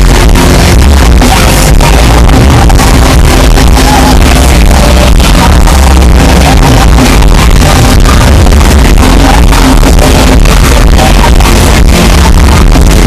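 Live band music from a concert stage, recorded so loud that the sound is overloaded, with a constant heavy bass.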